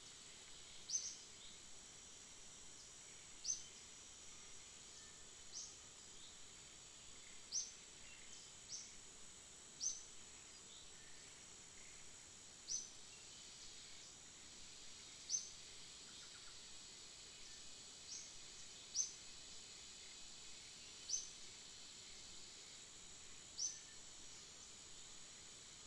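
Quiet outdoor ambience: a steady high insect drone, broken by about a dozen short, sharp high chirps at irregular intervals of one to three seconds.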